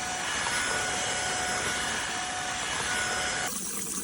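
Tineco Floor ONE S5 Steam wet-dry vacuum mop running, its suction motor giving a steady rushing whine. About three and a half seconds in, the sound thins out to a lower hum.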